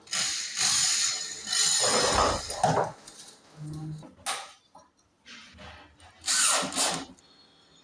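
Power drill running in bursts during wardrobe carpentry: a long run of about three seconds at the start, a brief one near the middle, and another of about a second near the end.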